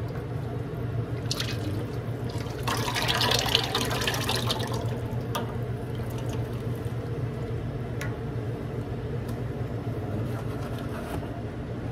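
Cooking oil pouring in a steady stream from a boxed jug's spout into an empty stainless steel deep-fryer vat, splashing on the metal. The pour is loudest about three to five seconds in. A steady low hum runs underneath.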